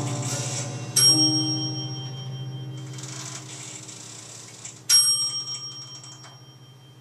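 Free-improvised duo for keyboard piano and drum kit: low piano notes held and slowly fading, cut by two sharp metallic strikes with a bright, bell-like ring, about four seconds apart.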